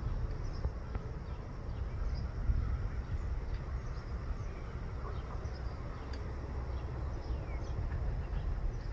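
Low wind rumble on the microphone, with faint, scattered short high-pitched chirps.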